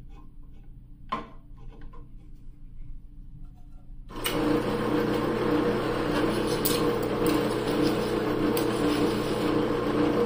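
A drill press switches on abruptly about four seconds in and runs steadily, its Forstner bit boring old epoxy out of a shaving-brush handle's knot socket. Before that there is a single sharp click about a second in.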